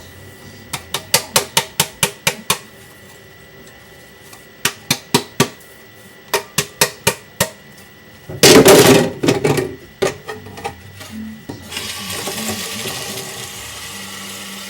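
Two runs of quick, sharp taps, about four a second, then a louder noisy clatter about halfway through and a few more taps; a steady hiss sets in near the end.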